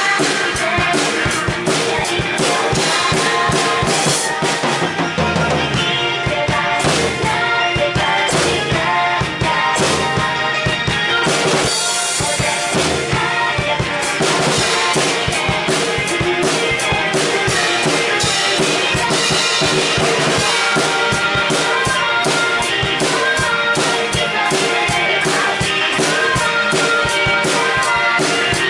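Music with a drum kit keeping a steady, busy beat.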